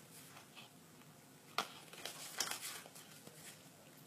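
Faint handling of trading cards: a sharp tap about one and a half seconds in, then a few soft rustles and taps.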